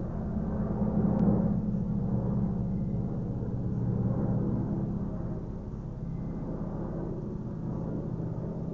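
Helicopter passing over: a steady low rotor drone with a fast chop, swelling about one second and again about four seconds in, then easing off a little.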